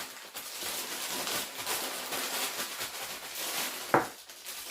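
A bag of crushed Cheetos and flour being shaken to mix the coating: a rustling that pulses about two or three times a second, with one sharp knock near the end.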